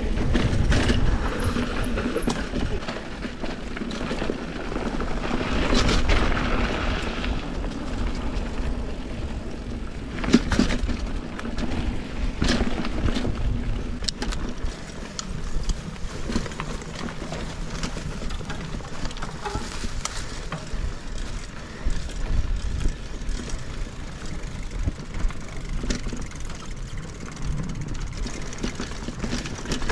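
Mountain bike riding over a dirt trail: steady tyre and ground rumble, with the bike clattering over bumps several times, most sharply between about ten and fourteen seconds in.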